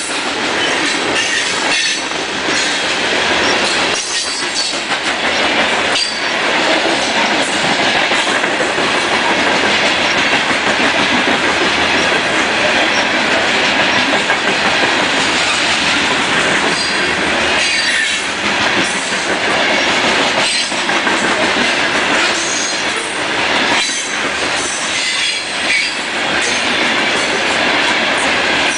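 Freight train of open-top coal cars rolling past close by: a steady loud rumble of steel wheels on rail, with irregular clacks over the rail joints and brief high wheel squeals now and then.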